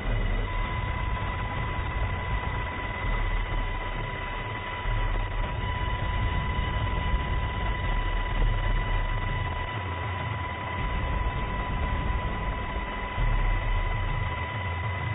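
Navy Seahawk helicopter in flight: steady rotor and engine noise with an uneven low rumble, and a thin steady high whine over it.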